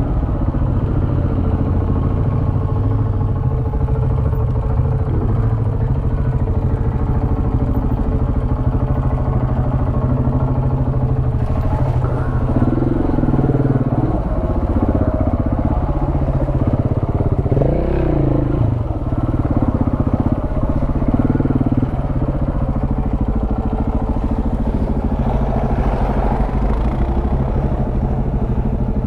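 KTM 690's single-cylinder engine running steadily under the rider off-road, with the revs rising and falling through the middle.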